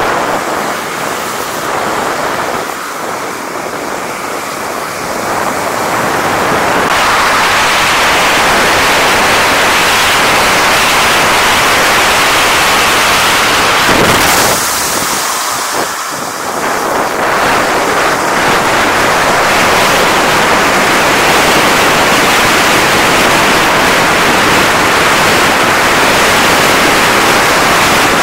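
Wind rushing over the microphone of a body-worn action camera while snowkiting: a loud, steady rushing noise that grows louder after several seconds, with a brief dip about 16 seconds in.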